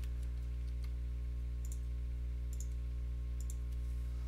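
Computer mouse clicking about five times, some as quick double clicks, under a second apart, over a steady electrical hum that is the loudest sound.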